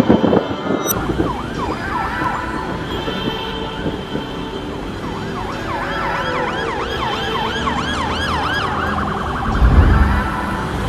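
Emergency vehicle siren wailing in repeated up-and-down sweeps that speed up into a fast warble near the end. A low thump is heard a little before the end.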